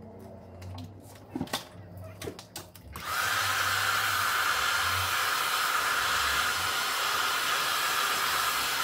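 A few light clicks and knocks of handling, then about three seconds in a hair dryer switches on and runs steadily and loudly.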